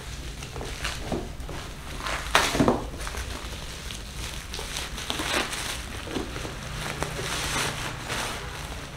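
Plastic wrap and bubble wrap crinkling and rustling in irregular bursts as a taped parcel is torn open by hand, with the loudest crunch about two and a half seconds in.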